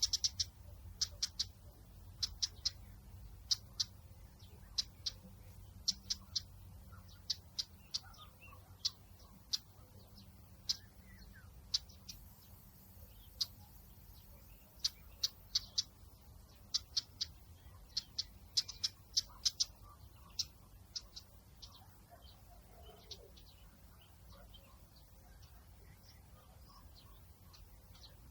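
Small birds chirping: short, high, sharp peeps in quick scattered runs that thin out to a few near the end, over a steady low outdoor rumble.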